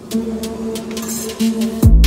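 Background electronic music with a beat and held synth tones; a deep bass note sweeps down and comes in loud near the end.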